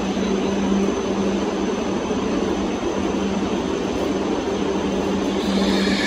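Steady interior noise of a Tohoku Shinkansen Hayabusa car, a continuous hum with a low tone that comes and goes. A brighter, hissier layer joins near the end.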